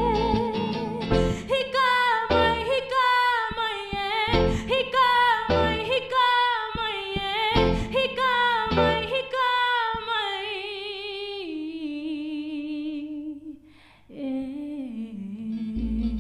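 Female voice singing a slow, ornamented solo line with the band's low accompaniment dropped out. It ends on a long note with vibrato that slides downward, and after a short break the low accompaniment comes back in near the end.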